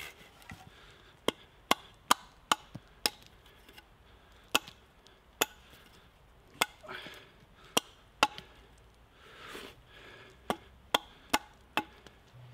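Small hatchet chopping into a thin green sapling: about fifteen sharp, dry chops at an uneven pace, several coming in quick runs of three or four.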